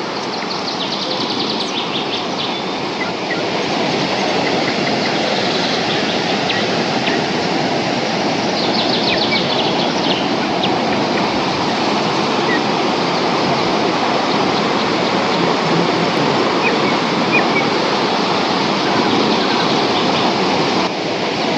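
Kintampo Waterfalls on the Pumpum River: the steady rush of falling water, a little louder from about three or four seconds in. Short rapid high trills sound over it a few times.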